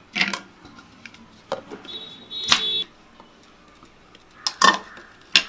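A handful of sharp clicks and metal clinks from a steel mixer-grinder jar and its lid being handled, one of them ringing briefly about two and a half seconds in. The grinder motor itself is not running.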